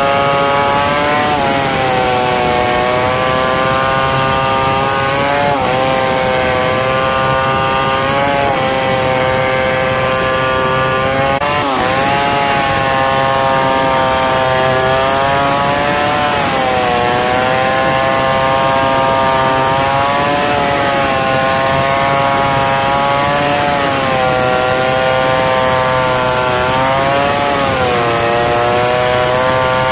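Stihl 070 two-stroke chainsaw running at high revs while ripping lengthwise through a log. The engine pitch sags and recovers several times as the cut loads it.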